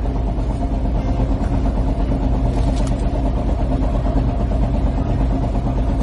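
A small boat's engine running steadily and loud at a constant speed, an even low drone.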